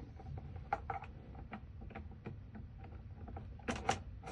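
Light, irregular clicks and taps of metal lock parts being handled as the spindles are fitted into the door lock, with a sharper click about three quarters of a second in and two quick clicks near the end.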